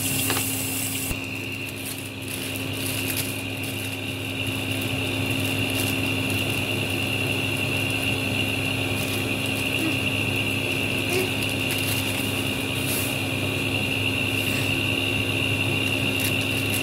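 Steady machine hum with a high, even whine, with a few faint clicks and rustles of plastic packaging being handled.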